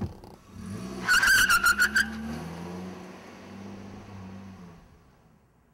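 Car pulling away hard: the engine revs up, the tyres squeal for about a second with a wavering pitch, then the engine note fades as the car drives off.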